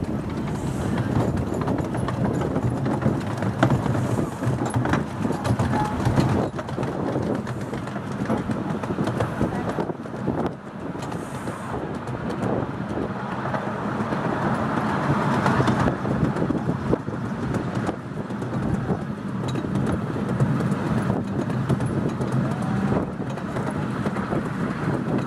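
Miniature-railway coaches running along the track, a steady rumble with a quick, rhythmic clatter of small wheels over the rail joints.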